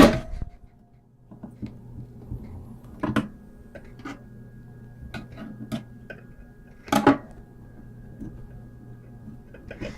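Scattered clicks and taps of a 3D printer's parts being handled and worked loose by hand, with a sharp knock at the start and louder knocks about three and seven seconds in.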